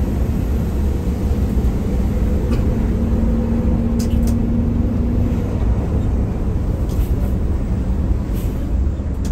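Heavy engine rumbling steadily at low speed, with a faint hum that comes up for a few seconds in the middle.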